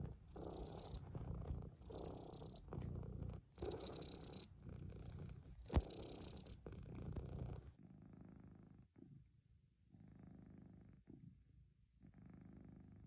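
Domestic cat purring close to the microphone, rising and dipping with each breath about once a second. A single sharp click sounds near the middle, and a little after halfway the purring becomes quieter and softer.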